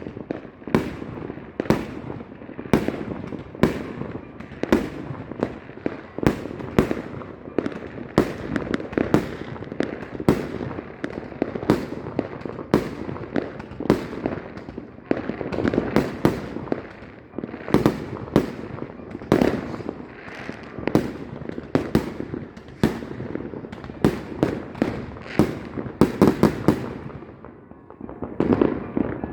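Fireworks going off in a steady barrage: sharp bangs one or two a second over a continuous rumble, with a quick run of bangs near the end.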